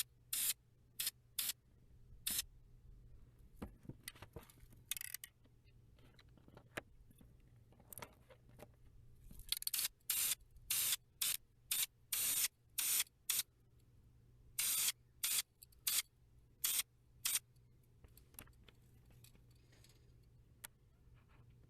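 Krylon aerosol spray paint can fired in many short hissing bursts as chipped paint is touched up. The bursts come in quick runs, densest about halfway through, with quieter gaps between.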